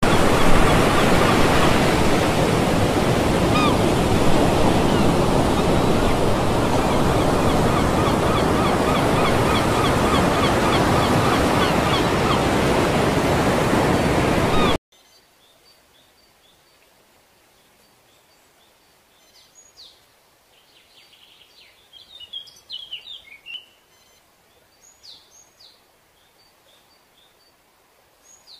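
Steady rush of ocean surf that cuts off suddenly about halfway through. Then quiet, with scattered short bird chirps near the end.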